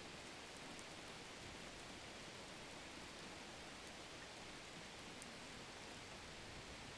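Faint, steady sizzling of chopped onions and spices frying in oil in a non-stick pan as they are stirred.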